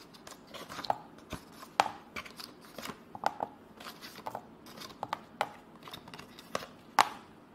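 Rolls of washi tape being taken from a box and set down one by one on a tabletop: a string of light, irregular clicks and taps.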